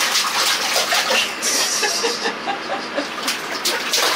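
Water splashing and sloshing in a small bathtub, in uneven bursts, with a brief louder hissing gush a little past one second in.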